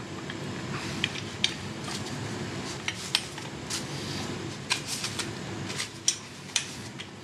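Motorcycle footpeg and peg-holder parts clicking and clinking together as they are handled and fitted by hand. The sharp clinks are irregular, a dozen or so, over a faint steady hum.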